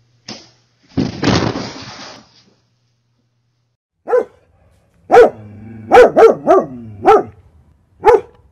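Dog barking: about seven short barks starting some four seconds in, several in a quick run. A short noisy rustle-like burst comes about a second in, before the barks.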